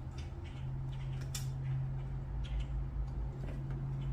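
A few light metallic clicks and taps of hand tools on a header bolt as it is threaded in, spaced about a second apart, over a steady low hum.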